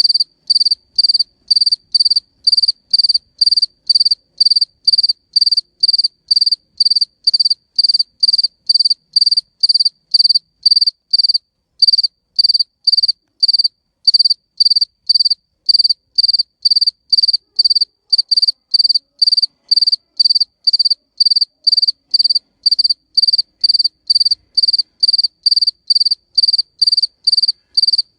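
A male cricket chirping, the high-pitched song made by rubbing its wings together to attract females. The short chirps repeat evenly, about two a second, without a break.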